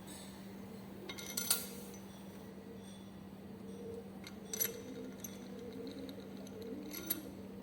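Three light metallic clinks, about a second and a half in, midway and near the end, from metal tools and engine parts being handled, over a steady low hum.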